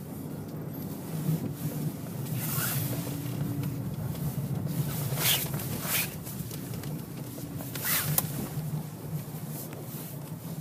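2011 Dodge Charger SE's 3.6-litre V6 engine running under throttle at about 2000 rpm, heard from inside the cabin, while traction control activates. A steady engine drone comes with several short bursts of hiss, about two and a half, five and eight seconds in.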